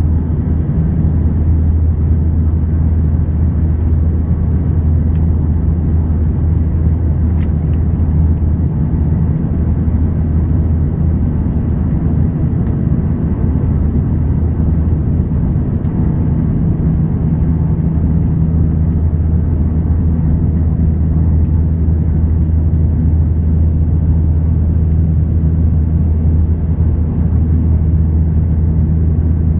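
Cabin noise inside a Bombardier Dash 8 Q300 turboprop airliner on its landing approach: the steady drone of the engines and propellers, with a strong low hum and a second, higher tone that grows clearer about halfway through.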